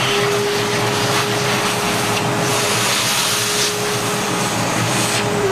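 Vacuum cleaner running steadily, with an even motor whine under the rush of air, its hose nozzle sucking leftover coffee grounds from the threads of a coffee grinder's upper burr carrier.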